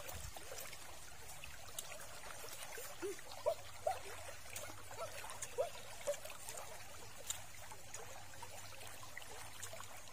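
Steady trickle of a flowing stream, with a few short rise-and-fall animal calls and small clicks in the middle.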